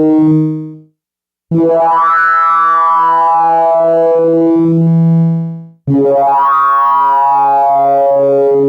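Waldorf Microwave One wavetable synthesizer playing held low notes with user-made wavetables: the tone of each note slides from bright to dull as the wavetable sweeps. One note fades out about a second in, a new one sounds for about four seconds and stops abruptly, and a third begins.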